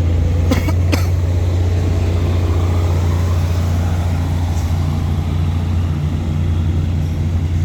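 Diesel locomotive engine running steadily, a deep low drone, with two sharp metallic clicks about half a second apart near the start.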